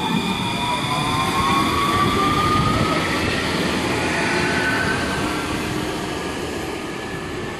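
Alstom RegioCitadis tram pulling away and accelerating past, its traction drive whining in a pitch that rises steadily over the first five seconds. Rolling and running noise swells and then fades as the tram draws off.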